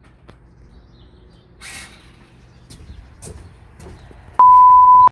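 A steady single-pitch censor bleep, loud and lasting under a second near the end; before it, only faint clicks and rustling.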